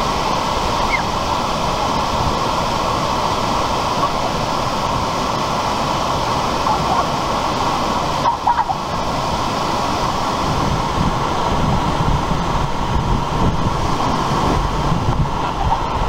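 Waterfall pouring over a rock ledge into a pool: a steady, loud rush of water, briefly dipping about eight seconds in.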